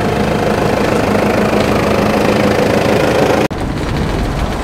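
A 4WD's engine idling steadily. About three and a half seconds in it cuts abruptly to the low rumble of the vehicle driving, heard from inside the cabin.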